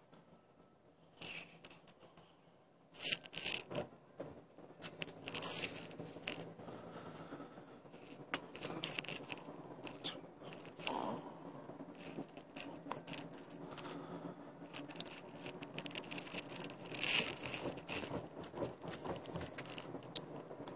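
Irregular crackling and scraping noises inside a moving car's cabin, in clusters, over a low steady hum.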